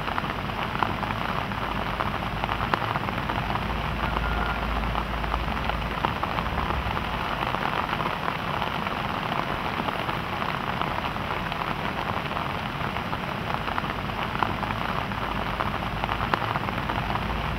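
Steady rain falling on broad Alocasia leaves and surrounding foliage: an even hiss dotted with many small drop ticks.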